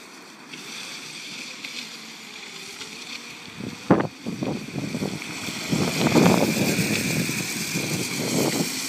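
Electric go-kart with an Etek motor and chain drive running on asphalt. Its whir and tyre noise grow louder in the second half as it comes near. A single sharp knock sounds about four seconds in.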